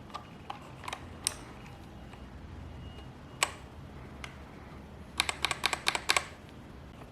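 Keys being pressed on a K3 mechanical keyboard with red linear switches: a few scattered keystrokes, then a quick run of about ten near the end.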